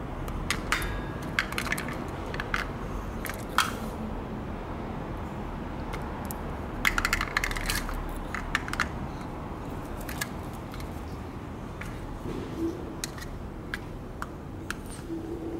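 Scattered light clicks and taps from kittens playing with a plastic wand toy on tiled pavement, with a dense flurry about seven seconds in, over a steady low background rumble.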